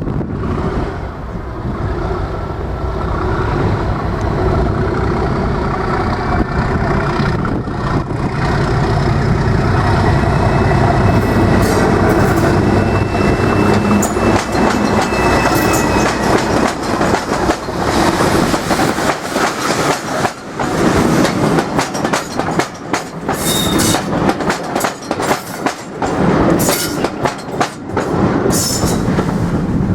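Class 37 diesel locomotive with its English Electric V12 engine working hard as it approaches and passes, growing louder over the first ten seconds or so. The train's wheels then clatter over the rail joints as the coaches roll by.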